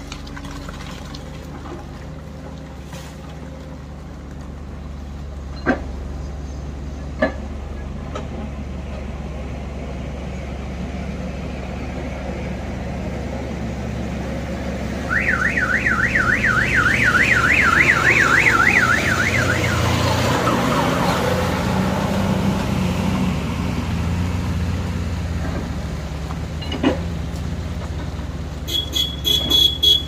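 Diesel engines of a JCB backhoe loader and excavator running steadily while digging rocky earth, with a few sharp knocks. In the middle, a loud electronic warbling alarm sounds for about four seconds, rising and falling about five times a second.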